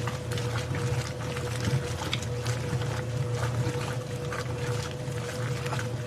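Washing machine running: a steady low motor hum with a constant whine, and water sloshing in the drum with irregular splashes.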